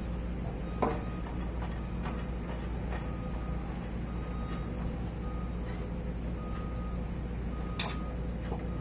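Two sharp metallic clicks, about a second in and near the end, with a few fainter taps, from hand work on a crane's hydraulic winch motor. They sit over a steady low hum and insects chirping.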